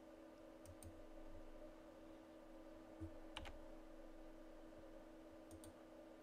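Faint clicks of a computer keyboard and mouse over a steady low hum: a pair of clicks near the start, two more about three seconds in, the second the loudest, and another pair near the end.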